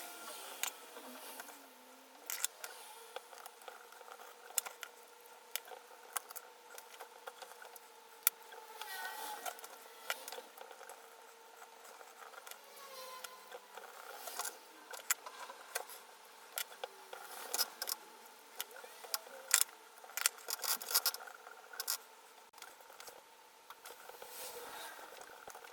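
Small hand-work noises: sharp clicks and light scrapes of tools and small parts being handled on an opened laptop, scattered irregularly over a faint steady hum.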